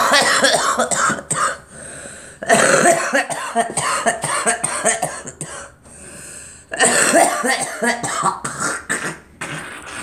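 A woman coughing hard in three long fits with short pauses between them, while smoking a cigarette.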